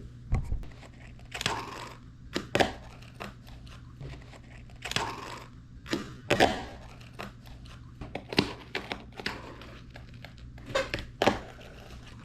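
Fingerboard being popped, scraped and landed on a soft journal: a dozen or so sharp taps and short scrapes at irregular intervals.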